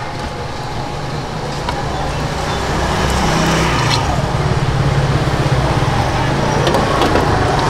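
Steady motor-vehicle and traffic noise of a busy street market, a low hum that grows louder about three seconds in, with indistinct voices underneath.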